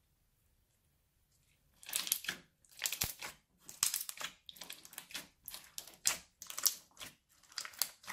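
Clear slime packed with plastic beads being pressed and squeezed by hand, giving a run of crunchy, crackling squishes that start about two seconds in and come roughly once or twice a second.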